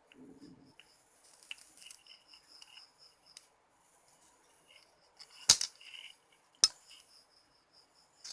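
Two sharp clicks about a second apart, like small snips or taps on a workbench, over the faint, steady pulsing chirp of insects in the background.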